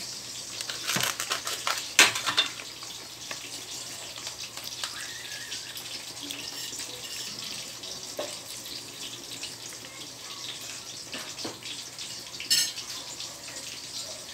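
Steady sizzling and bubbling of pork and chicken adobo cooking in a wok on a gas stove, with eggplant frying in a pan beside it. There are a few sharp clinks, the loudest about two seconds in, and liquid is poured into the wok about eight seconds in.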